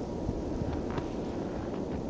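Blizzard wind buffeting the microphone, a steady low rumble with a few faint short crackles.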